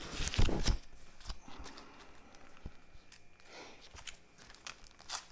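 Bagged comic books being handled and stacked: a thump about half a second in, then light plastic rustles and taps as the comics are lifted and set down.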